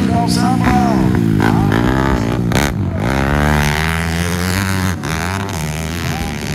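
Four-stroke motocross bike engine revving hard as the bike rides past close by, its pitch climbing and dropping again and again with the throttle and gear changes. It is loudest about three to five seconds in.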